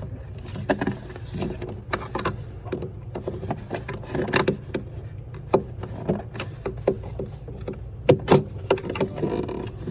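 Irregular clicks, knocks and scrapes of a small screwdriver prying up the clips of a refrigerator door rail as the rail is worked loose, with the loudest knocks about four seconds in and again near the end, over a steady low hum.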